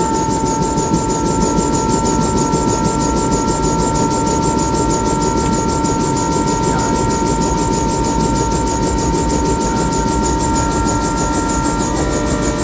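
Bell 212 helicopter running: the steady whine of its twin-turboshaft engines over a loud rushing noise, with the main rotor's even beat at about five pulses a second.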